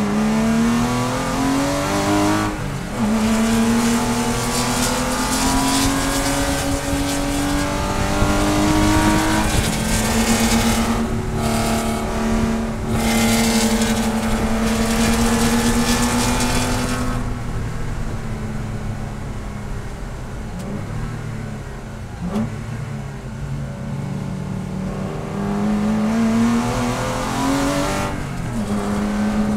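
Porsche race car's engine heard from inside the cockpit, revving up through the gears with an upshift about three seconds in, then holding high revs at speed with a loud rushing noise. It drops away as the driver lifts and downshifts for a corner, with two brief throttle blips, then pulls hard again with another upshift near the end.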